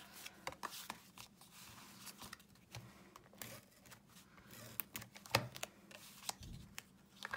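Paper card stock being handled, laid down and pressed onto a card front on a craft mat: light rustles and scattered taps, the sharpest about five seconds in.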